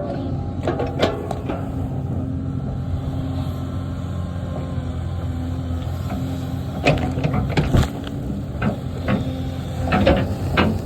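Engine of an earthmoving machine running steadily under work while stump-pulling, with sharp metallic clanks and knocks about a second in, around seven to eight seconds in, and near the end.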